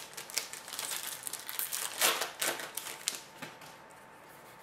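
Foil trading-card pack wrapper crinkling as it is handled and torn open. The dense crackling stops about a second before the end.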